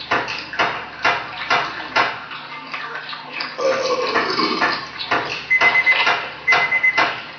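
Laptop-mixed sound collage of dishes and cutlery clattering, with sharp clicks about every half second and a fragment that repeats as a loop. A high beeping tone joins about five and a half seconds in.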